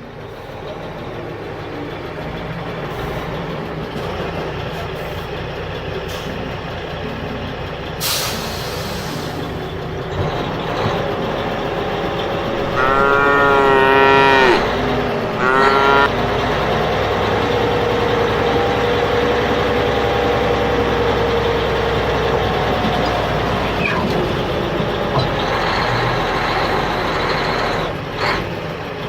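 Steady engine-like running noise, with a pitched, wavering call lasting a few seconds about halfway through.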